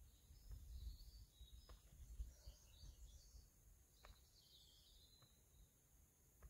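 Near silence outdoors: faint birdsong of scattered high chirps over a low, uneven rumble of wind on the microphone.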